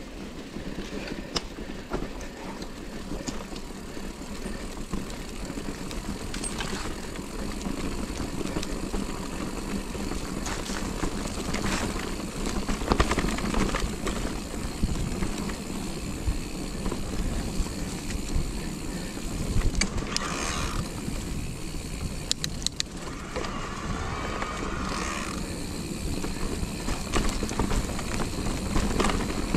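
Electric mountain bike rolling over a rough, stony and leaf-covered forest trail: continuous tyre noise and rattling of the bike over bumps, with a steady low rumble. A couple of brief higher-pitched whines sound about two-thirds of the way through.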